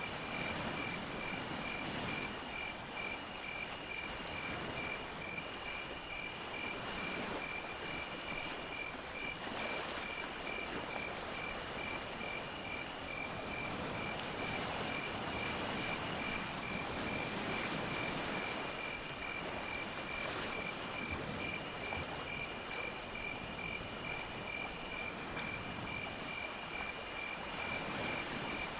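Insect chorus: a cricket trilling steadily at one pitch, and a higher insect buzzing in repeated phrases of about a second, with short gaps between them, over a low background rumble.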